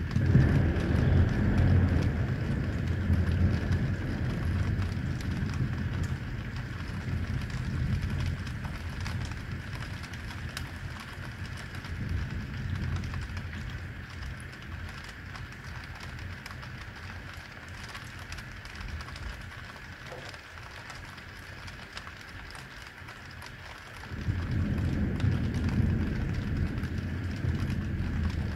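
Heavy rain falling steadily over the city, with a roll of thunder rumbling loud at the start and dying away over a few seconds. Near the end a second low rumble of thunder sets in suddenly.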